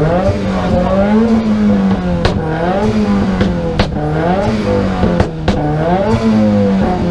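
A car engine revved hard again and again through a loud exhaust, its pitch climbing and dropping about once a second. Sharp exhaust pops and bangs break in half a dozen times.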